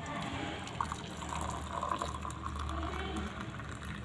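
Hot herbal brew being poured into a glass: a stream of liquid splashing and filling the glass, starting about a second in.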